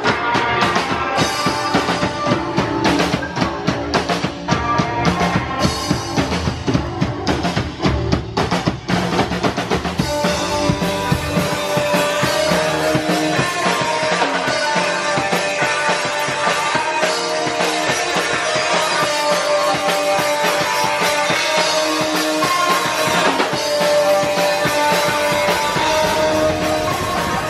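Punk band playing live: drum kit, electric bass and electric guitar. Hard drum hits lead for about the first ten seconds, then held notes fill in over the beat.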